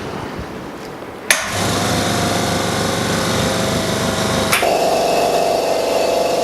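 Small electric pump motor switched on with a click and then running steadily with a hum. A second click about four and a half seconds in changes the pitch of its running note.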